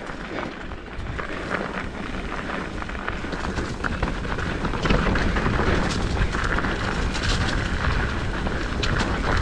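Mountain bike riding down a rough dirt trail: wind rumble on the camera microphone, tyres on dirt and the bike rattling over bumps. The sound gets louder about halfway through as the bike picks up speed.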